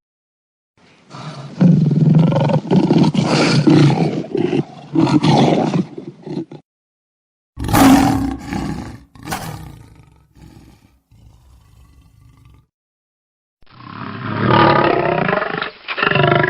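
Lion roars and growls as three separate edited sound-effect clips with dead silence between them. The first starts about a second in and runs about five seconds as a string of rough roars. The second starts sharply around the middle and trails off, and the third near the end has a clearly pitched roar.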